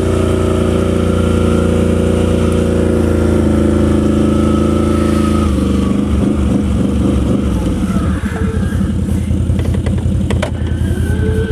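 Can-Am Renegade ATV engine running at steady high revs under way, then dropping about five and a half seconds in to lower, uneven running with a choppy pulse, and picking up slightly again near the end.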